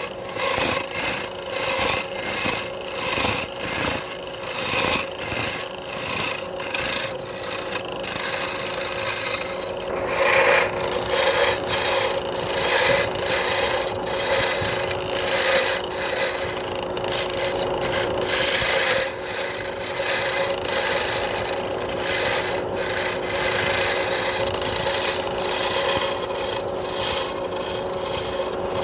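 Wood being turned on a motor-driven lathe: a tool scraping the spinning wood in repeated strokes, over the steady hum of the lathe's motor.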